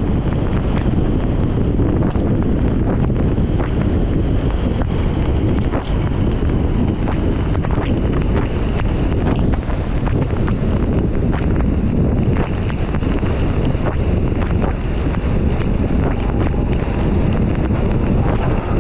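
Wind buffeting the microphone in a steady, loud rumble, with a thin high whine in the background that drops slightly in pitch about two-thirds of the way through.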